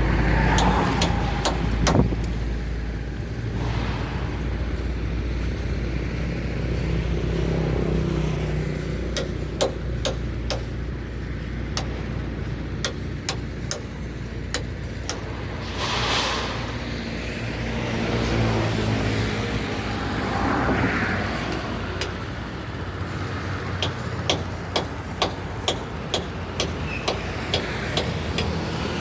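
Road traffic passing close by, with several vehicles swelling and fading over a steady low engine rumble. Runs of short sharp clicks or knocks come in the middle and again near the end, about one or two a second.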